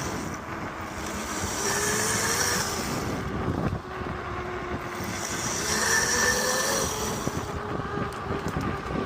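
48-volt electric mini bike's motor whining, its pitch rising, levelling off and rising again as the throttle is worked, under wind noise on the microphone.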